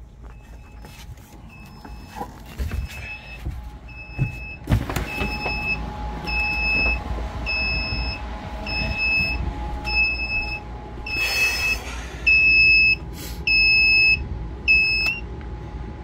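Trawler helm panel's engine alarm buzzer beeping, about one and a half high beeps a second. It grows louder, turns into two long unbroken tones near the end, then stops. The panel is still switched on with the engine stopped and no oil pressure. A few footstep thumps sound around four to five seconds in.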